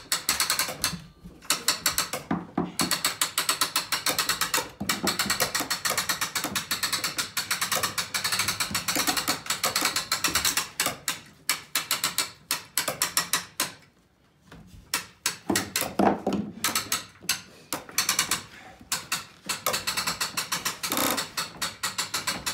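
Hand-cranked trailer winch ratcheting as the crank is turned, its pawl clicking rapidly in long runs with short pauses and a longer break about fourteen seconds in, hauling a 317 lb cast iron bathtub up the stairs under load. A duller knock comes about sixteen seconds in.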